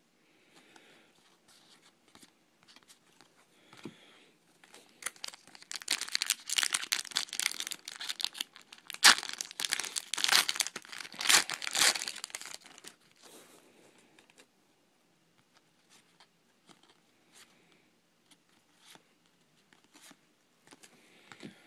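A trading-card pack wrapper being torn open and crinkled: several seconds of crackling rips and crumples in the middle, with only faint ticks of handling before and after.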